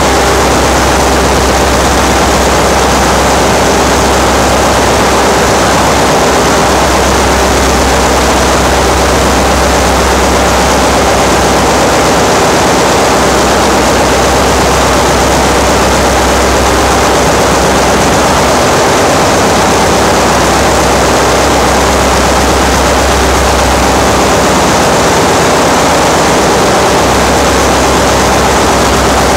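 Ship's engine-room machinery running: a loud, steady mechanical drone with a deep low hum and a few steady tones.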